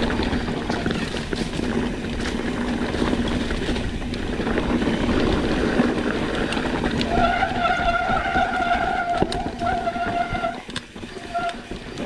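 Mountain bike running fast down a rocky trail: wind buffeting the microphone and tyre rumble. A steady low hum runs through the first half, then a higher whine comes and goes in the second half.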